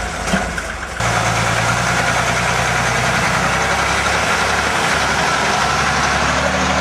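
Heavy truck engine running steadily, cutting in suddenly louder about a second in.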